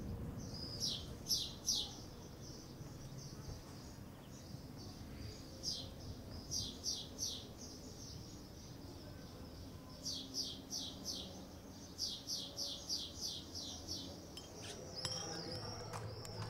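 A bird chirping in several short runs of quick, sharp, high notes, about three or four a second, over a faint low background rumble.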